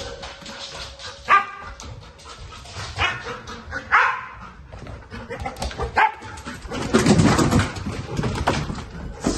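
Protection dog barking a few times while searching a house. Near the end come about two seconds of louder thudding and rustling: footsteps hurrying down a staircase.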